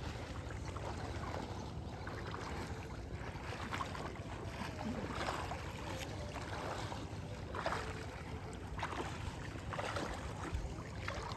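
Water sloshing and splashing as people wade through a flooded paddy field, with a few separate splashes now and then, over a steady low rumble of wind on the microphone.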